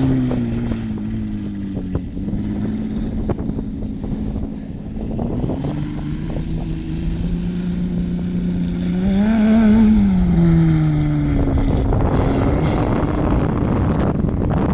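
Dune buggy engine running as it is driven over bumps: the engine note drops at the start, holds steady, rises in a short rev about nine seconds in, then falls away into rougher noise near the end.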